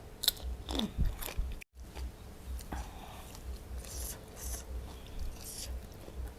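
Close-up biting and chewing of crunchy food: a few sharp crunches in the first second and a half, a brief cut to silence, then steady chewing.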